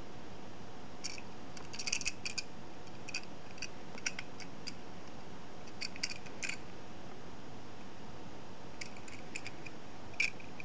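Light clicks and small taps in scattered clusters as a die-cast Tomica toy car is handled and turned over in the fingers, with the loudest click near the end, over a steady background hiss.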